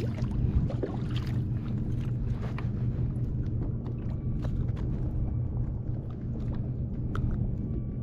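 Steady low hum of the kayak's Watersnake electric trolling motor, unchanging in pitch, with a few light clicks scattered over it.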